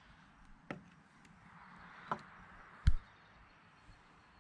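Light metal clicks and knocks as a spreader is worked free of its fitting on an aluminium sailboat mast, with one louder thump about three seconds in.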